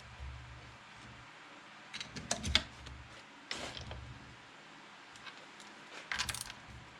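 Small metal clicks and rattles, in three short clusters with the loudest about two and a half seconds in, as a nut on a home-built gear cutter attachment is loosened by hand.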